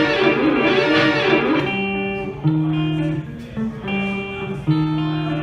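Instrumental guitar music: a dense, wavering wash of notes, then from about a second and a half in, single held notes sounding one after another with short gaps between them.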